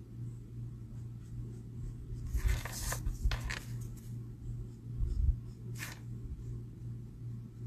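A felt-tip marker's nib rubbing across paper in a few short scratchy strokes, a cluster about two to three and a half seconds in and one more near six seconds, over a steady low hum.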